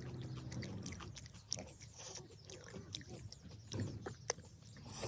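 A person chewing a mouthful of crisp, liquid-filled pani puri, with wet mouth noises, slurps and small crunching clicks. A short closed-mouth hum at the very start.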